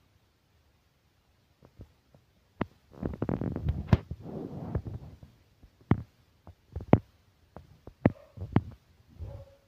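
Handling noise from fingers touching and moving newborn kittens on a cloth: scattered soft clicks and thumps, with a longer rustling about three seconds in.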